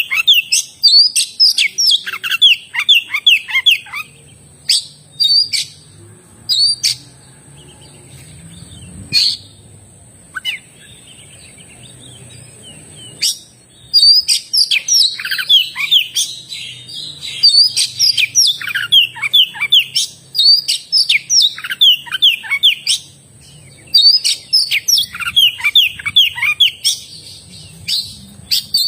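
Oriental magpie-robin (kacer) singing in full voice: fast runs of sharply falling whistled notes in long phrases, broken by a pause of several seconds in the middle where only a few single notes sound.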